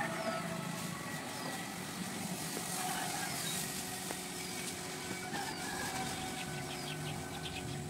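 Steady outdoor background hum with a bird's short falling chirp repeating about once a second.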